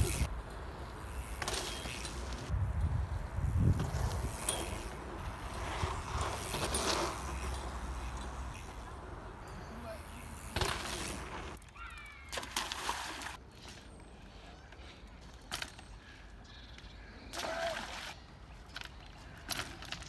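Mountain bike riding on packed dirt: tyres rolling over pump-track rollers, wind rumbling on the microphone, and several sharp knocks from the bike landing. The wind rumble drops away about halfway through, leaving a few fainter knocks.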